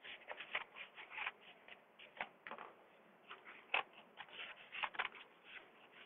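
Scissors cutting into an egg carton: a quiet run of irregular snips and crunches.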